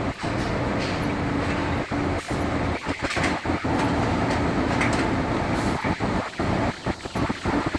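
Steady mechanical din of a large industrial laundry, with big washers and dryers running and a wheeled metal laundry cart being pushed over a tiled floor.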